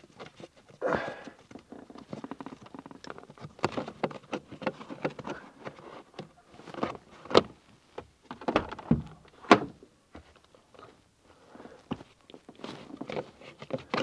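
Irregular clicks, knocks and rustling as gloved hands work the plastic interior trim panels and wiring under a car's dashboard by the footwell.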